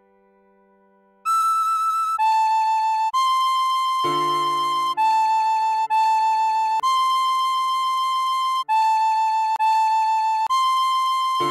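Tin whistle playing a slow melody of single held notes, about a second each, over sustained piano chords. After a near-silent first second, the whistle steps between high E, A and C, and a new, lower piano chord comes in about four seconds in.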